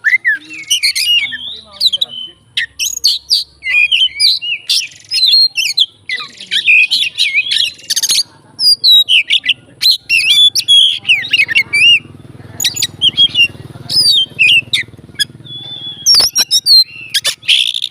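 Oriental magpie-robin (kacer) singing a fast, varied song of chirps, trills and sweeping whistles, full of phrases mimicked from other birds.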